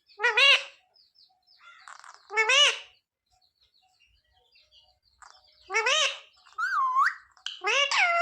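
Indian ringneck parrot calling in short, separate, arching calls: one about half a second in, another about two and a half seconds in, then three in quick succession near the end, one of them a sliding whistle.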